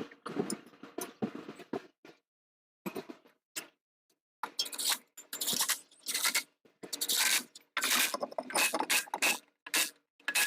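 Irregular scraping and rustling noises, in short uneven bursts that come more thickly in the second half.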